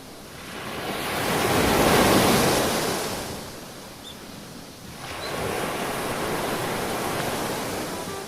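Ocean surf from hurricane swell: a wave breaks and washes, building to a peak about two seconds in and fading, then a second wash of surf rises from about five seconds in.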